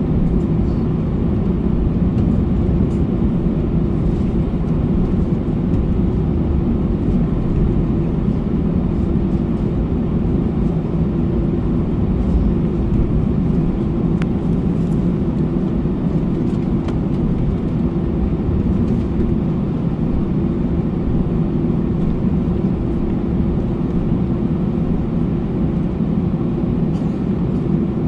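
Steady cabin noise of an Airbus A321's CFM56-5B turbofan engines at taxi power, heard from a seat over the wing. The airliner rolls along the taxiway with a low rumble and a steady droning tone.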